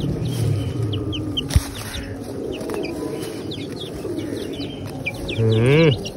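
Flock of young chickens feeding: many short, high, downward-sliding peeps throughout over low clucking. There is one sharp knock about one and a half seconds in, and one louder drawn-out call that rises and falls near the end.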